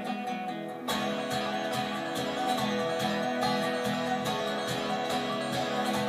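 Guitar-led music played from a laptop through a Philips CSS2123 soundbar's wired headphone-jack input. About a second in the bass comes in and the sound gets fuller, with a steady beat.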